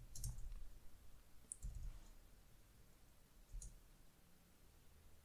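A few faint, isolated computer keyboard keystrokes with quiet gaps between them.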